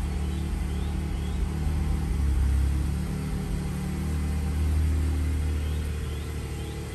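Porsche 718 Cayman GT4's 4.0-litre flat-six running at low revs as the car moves slowly, swelling twice under light throttle and then easing off.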